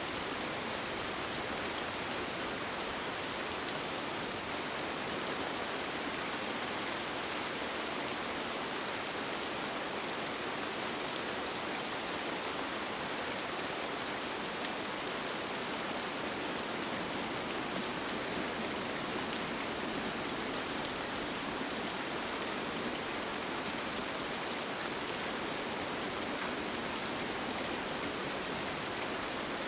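Steady rain falling on a tent, an even hiss with faint scattered drop ticks and no change in level.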